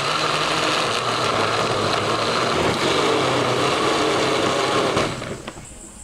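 A small motor running steadily with a loud whirring noise, then stopping about five seconds in.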